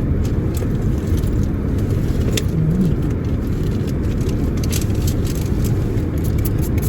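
Steady low rumble of a car's engine and cabin noise heard from inside the car, with a few faint clicks.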